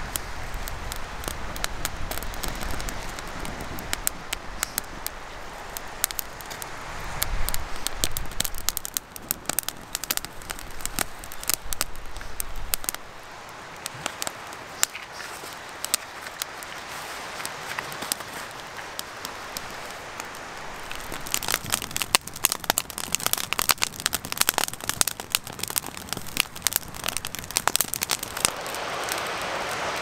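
Campfire kindling of feather-stick shavings, split wood and dry lichen-covered spruce twigs catching and crackling with many sharp pops. The crackling grows denser and louder in the last third as the fire takes hold. Wind rumbles on the microphone through the first half.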